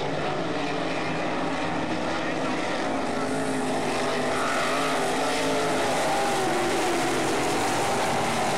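Several winged sprint car engines running together around a dirt oval, their pitch wavering up and down as the cars go round.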